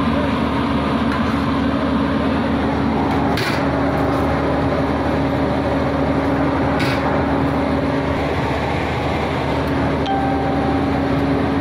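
Steady mechanical hum with a constant rushing noise, as from a running motor or fan, broken by two brief clicks a few seconds apart.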